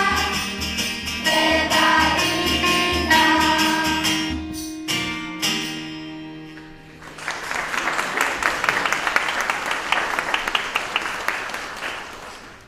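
A choir and band end a song with singing and tambourine, closing on a held final chord; about seven seconds in, the audience breaks into applause, which dies away near the end.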